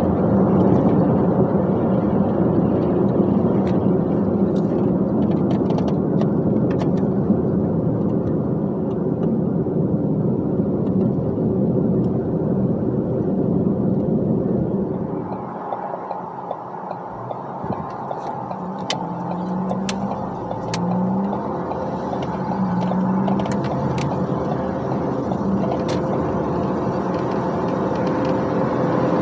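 Dump truck engine and road noise while driving, steady with a low hum. About halfway through it drops in level, then the engine note comes back in short steps, one of them rising.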